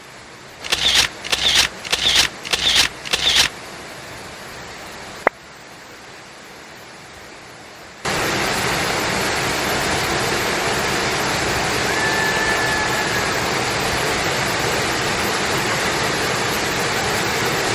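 Steady rushing of a waterfall, fairly faint at first and then much louder from about halfway through. Near the start comes a quick run of about six sharp bursts, then a single click.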